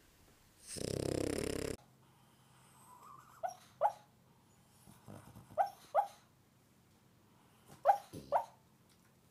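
A sleeping dog gives one loud snore, then three pairs of short, muffled woofs or yips, each dropping in pitch: sleep-barking, typical of a dog dreaming.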